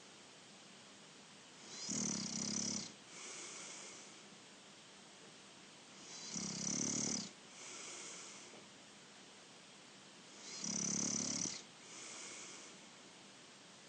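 A sleeping person snoring: three loud snores about four seconds apart, each followed by a softer, airy breath.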